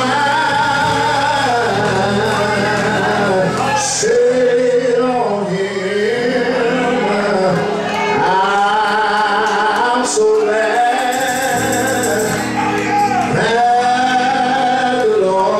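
Gospel praise singing in a church hall with instrumental accompaniment: long held, wavering sung phrases of a few seconds each, with short breaks between them.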